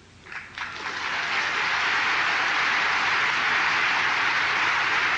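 Large audience applauding, starting about half a second in and swelling within a second to steady clapping that holds throughout.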